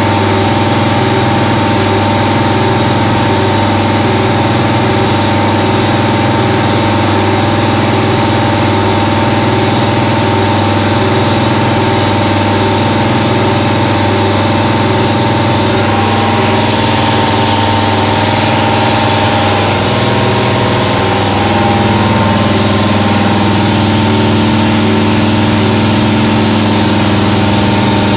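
1995 Haas VF-3 CNC vertical mill cutting a metal block with an end mill under coolant spray: a steady spindle-and-cutting hum. Its tones shift about halfway through and again a few seconds later as the toolpath changes.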